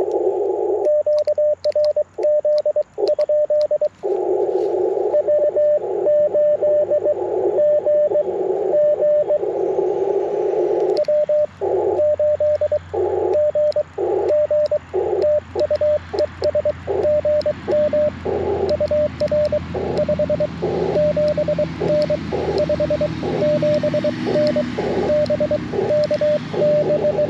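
Morse code (CW) from an Icom IC-705 transceiver: a single steady-pitched tone keyed in dots and dashes. Hiss from band noise sits in the same narrow passband between and under the characters, swelling into long solid stretches in the first ten seconds or so.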